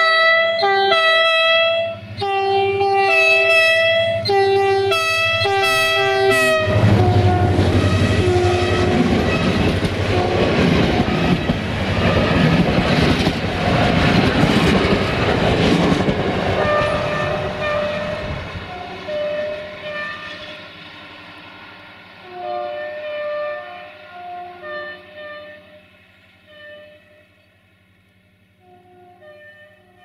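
The multi-tone air horn of diesel-electric locomotive 64-0920-0, rebuilt with a GM/EMD engine, sounds a rapid series of short blasts on changing notes. About seven seconds in, the locomotive and its coaches pass close by, a loud roar of engine and wheels clattering over the rail joints. After the pass the horn keeps sounding short blasts that grow fainter as the train draws away.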